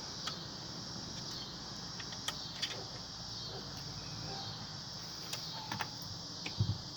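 Crickets chirping steadily, with a handful of light clicks and taps scattered through.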